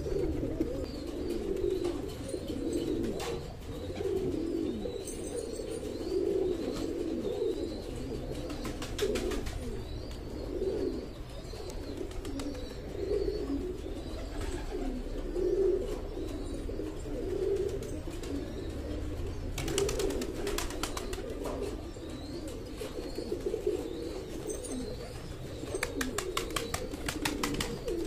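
Domestic pigeons cooing, low rolling coos repeating and overlapping throughout. A few short bursts of rapid clicking come in about a third of the way in, around two-thirds of the way, and near the end.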